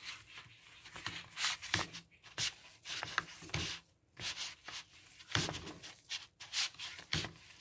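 Gloved hand kneading and squeezing a wet, sticky mash of soaked catfish feed and shrimp paste in a plastic bowl: irregular squelching and rubbing strokes with short pauses.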